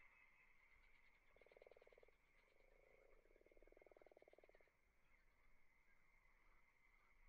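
Near silence with faint frog croaks: a short rapid trill about a second in and a longer one a couple of seconds later, over a faint steady high tone.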